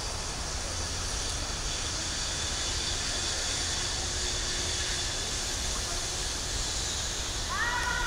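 Steady outdoor background noise: a low rumble and an even hiss. Near the end a person's voice calls out with a long held note.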